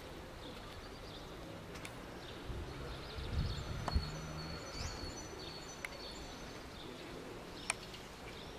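Faint outdoor background noise with a few small bird chirps about halfway through and two or three sharp clicks.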